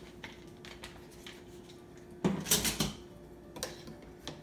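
Kitchenware being handled: a few light clicks, then a short clatter of quick knocks a little over two seconds in, over a faint steady hum.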